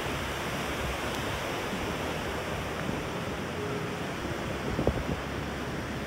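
Ocean surf washing steadily onto the beach, with wind blowing across the microphone and a brief thump about five seconds in.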